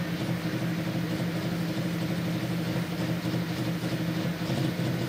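A pulling tractor's diesel engine running steadily at a constant low speed, not revving.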